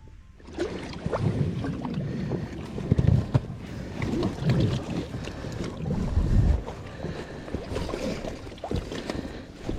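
Water sloshing and splashing in uneven surges, with wind buffeting the microphone and scattered knocks.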